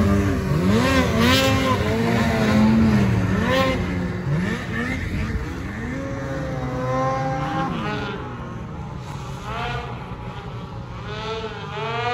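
Mountain snowmobile's two-stroke engine revving hard in deep snow, its pitch rising and falling again and again. It is loudest at first, fades as the sled moves off, and swells briefly near the end.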